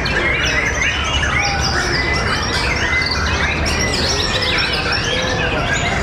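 Several caged white-rumped shamas singing over one another in competition: a dense, unbroken tangle of loud whistles, chirps and quick trills.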